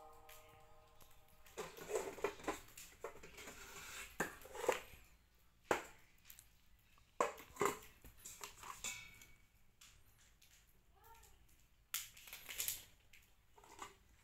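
Rice cooker and its packaging being handled during unboxing: faint, scattered crinkles, clicks and knocks at irregular intervals.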